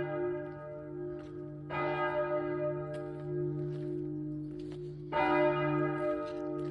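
Church bells ringing, with fresh strikes about a second and a half in and about five seconds in. Each strike rings on over a steady low hum.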